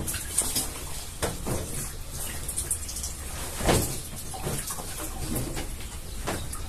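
Denim jeans being pushed and dropped into the tub of a Daewoo top-loading washing machine: rustling cloth and several soft knocks against the tub, the loudest about halfway through, over a steady low hum.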